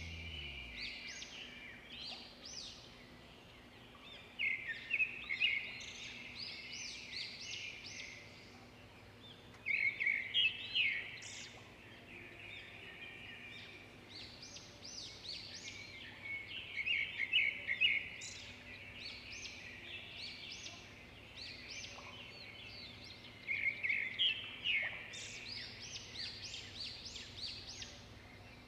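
Small birds chirping, with high, rapid chirps coming in four louder flurries several seconds apart and sparser calls in between.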